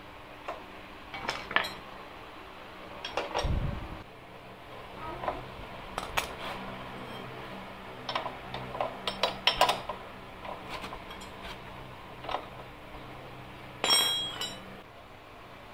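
Steel ring spanner clinking and tapping on a motorcycle's rear axle nut and chain adjuster as it is fitted and turned: irregular light metallic clicks, a dull thump a few seconds in, and a louder ringing metal clank near the end.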